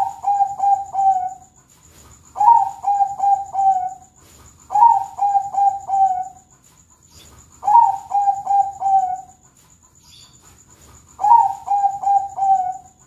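Zebra dove (a Bangkok-bred perkutut) cooing its song: five phrases about two to three seconds apart, each a higher opening note dropping into a quick run of four or so lower, rhythmic coos.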